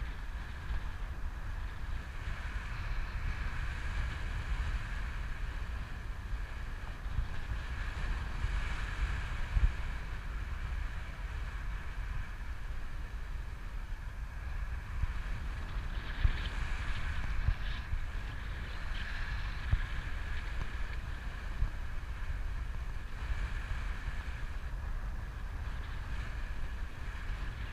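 Wind noise from the airflow of paraglider flight buffeting the camera microphone: a steady low rumble with a few sharper gusts, and a thin steady whistle above it.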